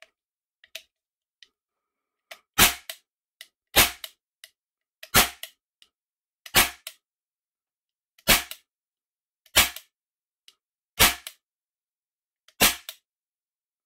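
Early-1980s Wicke Buddy toy cap revolver firing 12-shot plastic ring caps: eight sharp cap bangs, roughly one every one and a half seconds, one of them about two-thirds of the way through much weaker than the others. Faint clicks of the trigger and hammer come between the shots.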